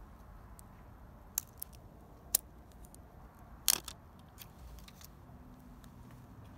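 Light handling noises: a few soft clicks, then a short rustling peel about three and a half seconds in as the clear backing is pulled off a small adhesive Velcro strip.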